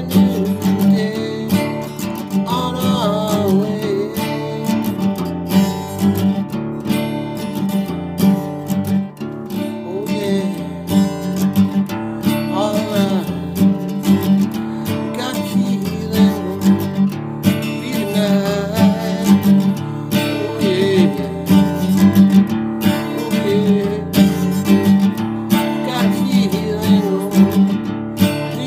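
Acoustic guitar strummed in a steady rhythm, playing a song, with a melody line weaving over the chords now and then.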